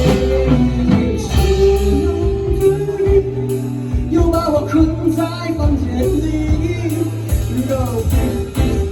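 Rock band playing a song: guitar, bass and drums, with a voice singing a melody line over them.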